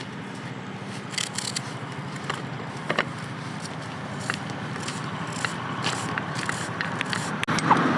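Irregular light clicks and scraping, with a faint steady background haze.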